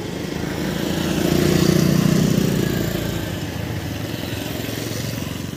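A motor vehicle passing by on the road: its engine grows louder, peaks about two seconds in, then fades away over steady traffic noise.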